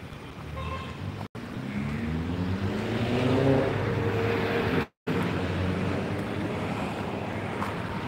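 A road vehicle's engine accelerating, its pitch rising over about three seconds and loudest about three and a half seconds in, then settling into a steady traffic haze. The sound cuts out completely twice, briefly.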